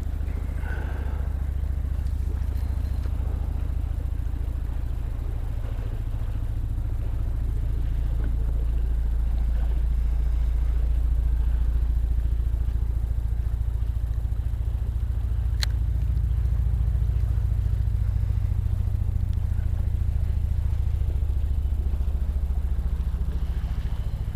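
A low, steady engine drone, swelling slightly in the middle, with one sharp click about two-thirds of the way in.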